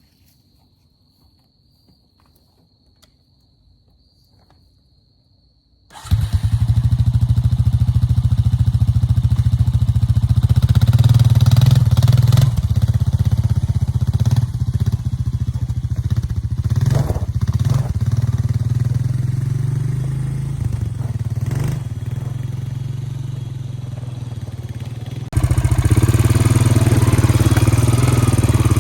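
About six seconds of near-quiet with a faint high whine, then a 2002 Honda Rancher ES ATV's single-cylinder engine comes in suddenly and runs loudly, its level rising and easing. Near the end it steps up suddenly louder.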